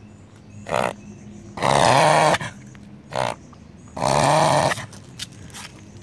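Beagle reverse sneezing: two long, loud pulls of air through the nose, each led by a short one, coming a little over two seconds apart. It is a harmless spasm.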